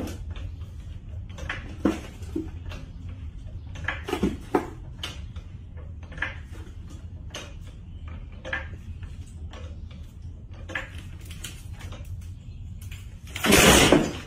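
Hydraulic floor jack being pumped by its long steel handle: irregular metallic clicks and clanks from the handle and jack. Near the end comes a sudden loud noise lasting about a second, the loudest sound here.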